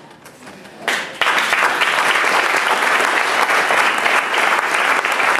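An audience applauding, breaking out about a second in and keeping up as a dense, steady clapping.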